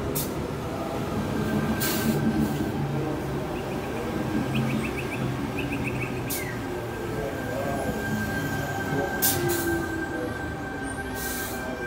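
Sydney Trains Waratah double-deck electric train moving past the platform: a steady low motor hum, a thin high squeal held through most of it, and a few sharp clacks as the carriages roll by.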